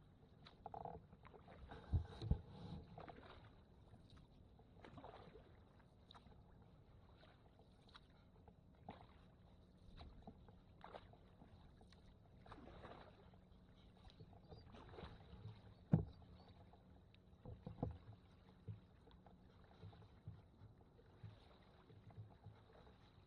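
Canoe being paddled: soft paddle strokes in the water every couple of seconds, with a few sharper knocks.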